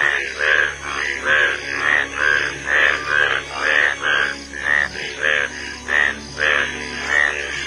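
A chorus of Indian bullfrogs calling in a rain-filled puddle. Loud croaks repeat about twice a second, overlapping from several frogs and not quite evenly spaced.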